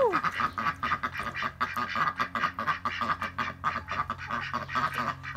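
White domestic ducks quacking in a rapid, uneven run of short quacks.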